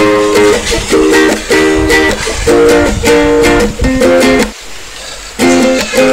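Background music: a bright plucked-string tune with a steady, repeating pattern of notes, dropping away briefly about three-quarters of the way through.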